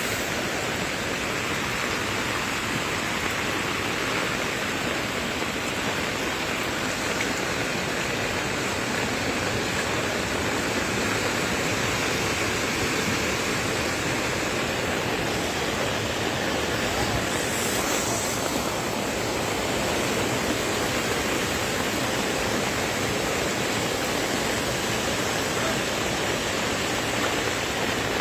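Steady rushing of water, an even hiss that does not change.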